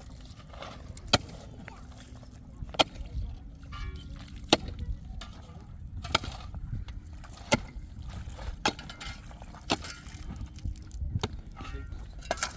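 A hand tool striking hard, with sharp blows about every one and a half seconds, over a steady low rumble.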